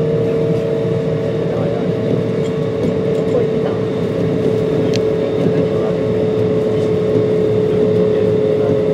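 Kintetsu 1249 series electric train running at speed, heard from inside the car: a steady rumble of wheels on rail under a steady whine from its Hitachi GTO-VVVF traction equipment, the whine's pitch falling slightly.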